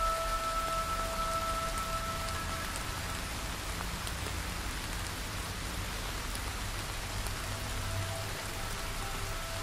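Steady rain falling, an even dense hiss. Faint held musical tones fade out in the first few seconds.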